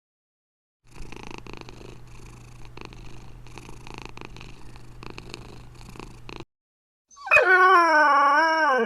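A cat purring steadily for several seconds. Then, about seven seconds in, a dog starts a loud, long howl whose pitch wavers up and down; it is the loudest sound here.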